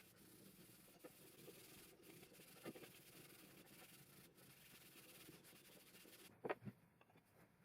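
Near silence: faint rubbing with a few light taps, the loudest a pair of taps close together near the end.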